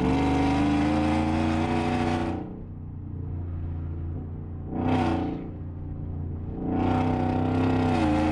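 Whipple-supercharged 5.0 V8 of a Ford F-150 pulling hard under acceleration, heard from inside the cab, through catless headers and a straight pipe with a Vibrant resonator. It backs off about two and a half seconds in and gives a short loud burst near five seconds. It pulls again from about seven seconds, with a gear change near the end.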